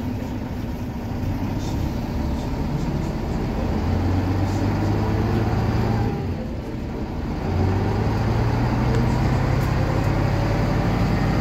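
DAF SB220 Optare Delta bus's diesel engine heard from inside the saloon as the bus pulls away and accelerates, its note rising, easing off briefly about six seconds in, then rising again.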